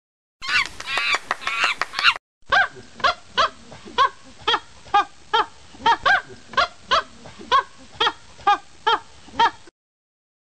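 Animal calls: a short burst of dense chattering, then a steady run of about seventeen brief honking calls, roughly two and a half a second, that stops abruptly.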